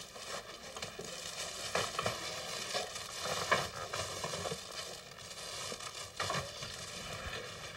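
Freshly baked crusty loaves being handled and piled into a wicker basket: crackling and rustling of crust and wicker, with several sharp knocks as loaves land, the loudest about halfway through.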